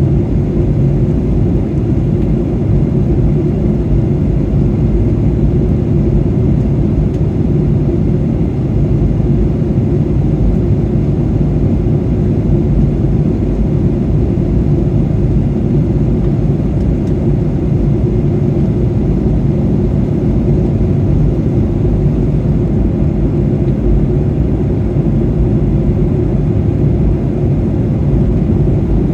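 Steady low rumble of a Boeing 737-800 in flight, heard from inside the passenger cabin: engine and airflow noise.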